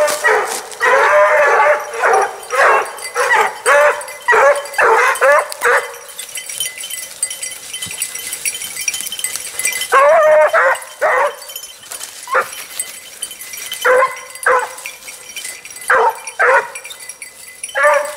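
Pack of Basset Bleu de Gascogne hounds baying on the trail of a hare. Many voices overlap for about the first six seconds, then single bays come every second or two.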